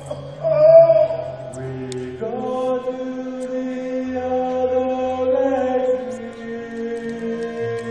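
Musical-theatre number: the cast sings long held notes in chords over a steady low accompaniment. The chord changes about two seconds in and again near six seconds.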